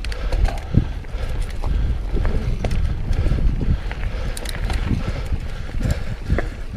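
Mountain bike rolling over rough trail: tyres on dirt and rock, with the bike rattling and clicking in quick, irregular knocks over a steady low rumble.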